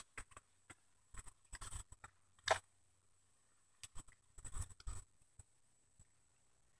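Scattered rustles and scrapes of a phone being handled and rubbing against a knit sweater, in a few short clusters with quiet gaps between.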